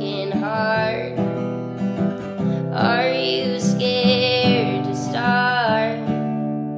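Song playing: a strummed acoustic guitar under a sung melody line.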